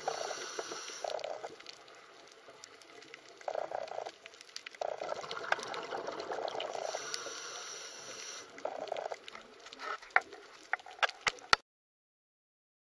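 Water gurgling and bubbling in uneven bursts, with a few sharp clicks near the end before the sound cuts off abruptly.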